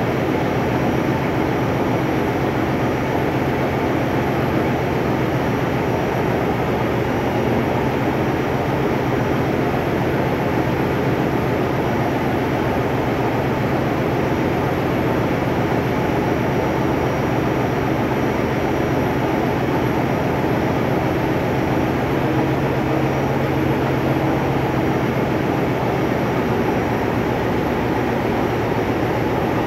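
Marine diesel generator engines running steadily in a ship's engine room: a loud, even engine noise made of a fast continuous firing pulse over a low steady hum, with no change in speed or load.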